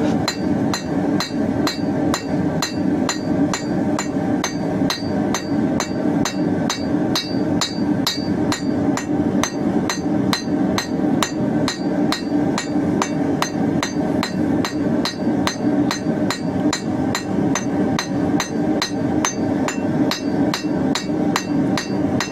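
Blacksmith's hammer striking hot square steel bar on an anvil in an even, steady rhythm of about two and a half blows a second, flattening and widening the tail of a forged bird. A gas forge runs steadily underneath.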